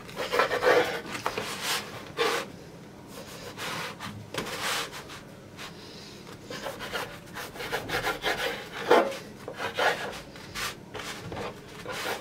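Kitchen knife sawing through crusty baked pide flatbread on a bamboo cutting board, in short irregular strokes with brief pauses: the crust crackling and the blade scraping the wood.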